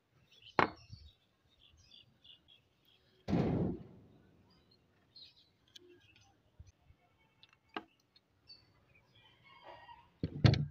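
Hard plastic housing parts of a Singer Discomatic sewing machine knocking and clunking as they are handled and set down on a wooden table: a sharp knock under a second in, a longer clattering thud about three seconds in, a click near eight seconds, and two quick knocks near the end.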